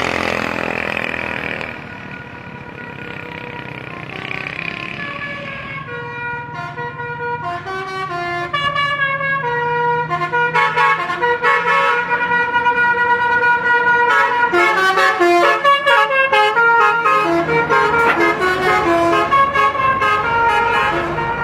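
A bus's telolet basuri horn, a set of tuned horns that plays a tune. It opens with a loud blast, then a fast run of changing notes grows louder from about six seconds in.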